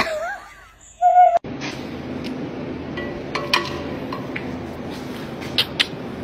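Siberian husky giving short howl-like calls that glide up and down, ending in a stronger, slightly falling cry about a second in. This cuts off sharply, and a steady background hum with scattered clicks and taps follows.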